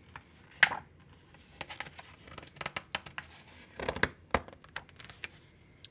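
Paper pages of a hardcover picture book being handled and turned: a string of short rustles and swishes, loudest about four seconds in, with a sharp click as the page comes down.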